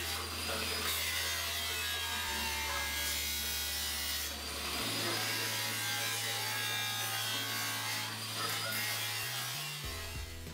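Handheld grinder cutting through metal in a pile of wooden pallets, throwing sparks: a steady grinding noise that eases off near the end. Low bass notes of background music sit underneath.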